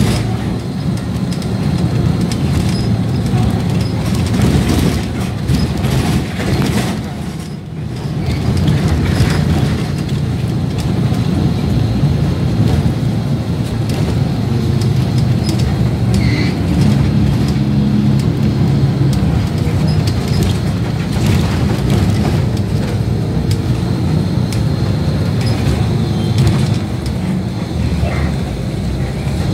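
City bus driving along, heard from inside the cabin: a steady low engine rumble and road noise, with frequent small knocks and rattles. The noise dips briefly about eight seconds in.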